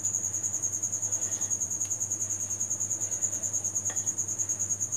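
A cricket trilling steadily, a high-pitched chirp pulsing rapidly without a break.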